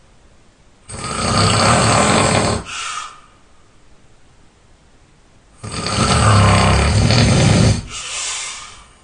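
A person snoring while ill: two long, loud snores about five seconds apart, each followed by a shorter, softer breath.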